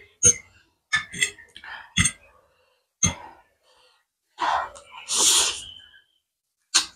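Close-miked mouth sounds of eating spicy instant noodles: several short wet smacks while chewing, then one long noodle slurp about four and a half seconds in, lasting about a second and a half.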